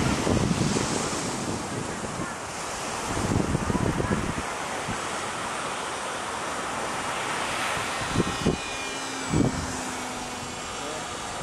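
Surf washing on the shore under steady wind, with gusts buffeting the microphone several times. Late on comes a faint thin whine from the RVJET flying wing's electric pusher motor as it flies past.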